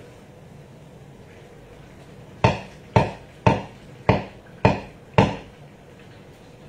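Six sharp knocks in a steady rhythm, about two a second, each dying away quickly, in the middle of the stretch.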